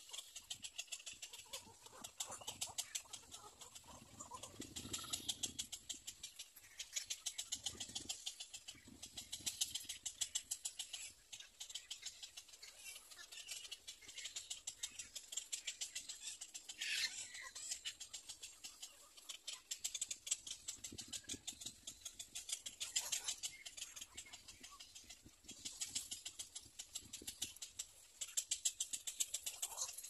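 Little egret chicks in the nest giving rapid, high ticking chatter in repeated bursts of a second or two, with rustling of twigs as they move about in the first few seconds.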